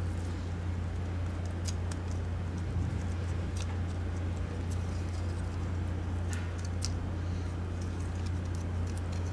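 A few light clicks of small plastic computer-mouse parts being handled and set down on a silicone work mat, over a steady low hum.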